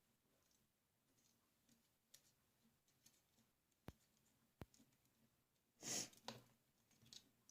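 Near silence broken by two sharp clicks a little under a second apart, then a brief scrape and one more small click near the end: a bolt being worked loose from a staple gun's magazine track.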